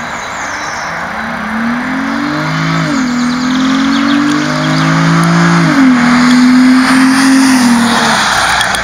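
Nissan 350Z's 3.5-litre V6 accelerating through the gears. The engine note climbs and drops sharply at an upshift, climbs again to a second upshift, then holds steady, over constant road and wind noise.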